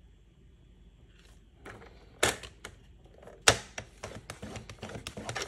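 Paper trimmer cutting a diagonal across card stock: after a quiet moment, two sharp clicks a little over a second apart, then a quick run of clicks and scrapes as the blade is worked along the cut.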